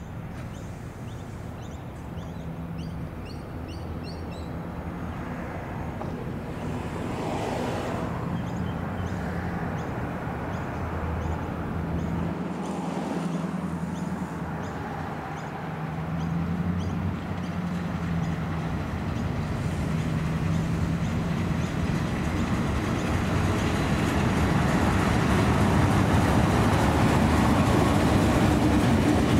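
Southern Shorthaul Railroad diesel locomotive approaching with a container freight train, its engine hum growing steadily louder as it nears. Small birds chirp during the first half.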